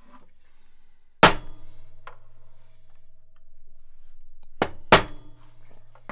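Hammer striking a steel pin punch held against a Wilton bullet vise body, each blow a sharp metallic clink with a ringing tail. There is one hard blow about a second in, a light tap shortly after, then two quick blows near the five-second mark. The blows are meant to drive out a small pin in the vise that will not come out.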